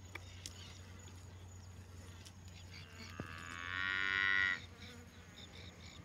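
A cow mooing once, a single long call about halfway through.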